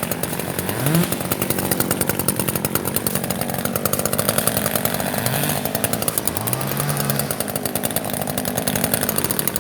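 Two-stroke chainsaw running at high speed, cutting through dead ash wood. The engine note rises about a second in and again about two-thirds of the way through as the saw picks up speed.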